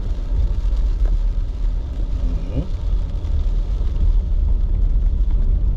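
Steady low rumble of a Jeep Gladiator's V6 engine and tyres, heard from inside the cab while it drives a wet, muddy trail.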